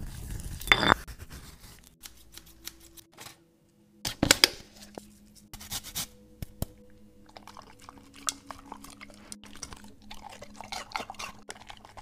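Food being prepared in a kitchen: a stone pestle grinding seeds in a granite mortar, then clicks and scrapes of ingredients going into a ceramic bowl, and a radish rubbed in quick strokes over a metal hand grater.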